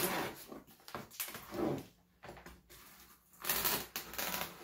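Cardboard box being handled, rustling and scraping in irregular short bursts, the loudest about three and a half seconds in.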